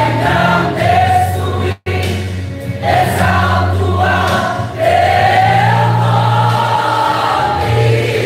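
Mixed church choir singing a gospel song, sustained sung lines over steady low accompaniment notes. The audio drops out for an instant about two seconds in.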